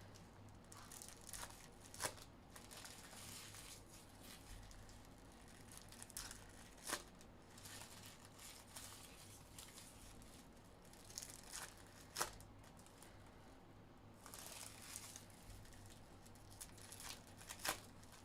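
Packs of 2021 Panini Prizm Draft Picks trading cards being torn open, their wrappers crinkling, with four sharp snaps about five seconds apart.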